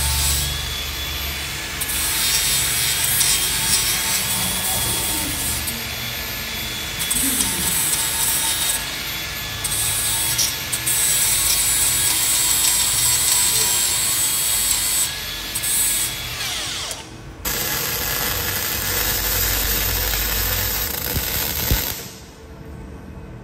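Cordless angle grinder grinding a steel tube, a continuous harsh grinding whine that rises and falls as the disc bites. The grinding cuts off sharply near the end.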